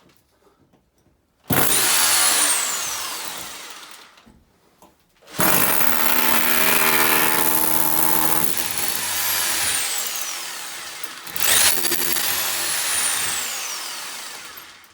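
Handheld power saw run in three bursts, cutting an opening in the wall. Each burst starts with a quickly rising whine that falls away slowly as the blade coasts down. The longest burst, in the middle, holds a steadier, lower hum for a few seconds while it cuts.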